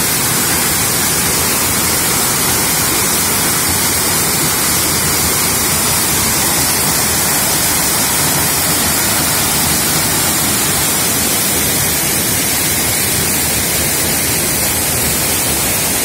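Waterfall in full flow, heavy white water falling onto rock, heard close as a loud, steady rush.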